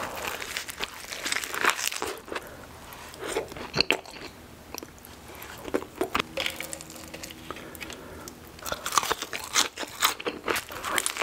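Close-miked eating: crunchy bites into breaded fried chicken and wet chewing, in irregular crackly bursts. There is a quieter, softer stretch in the middle before the crunching picks up again near the end.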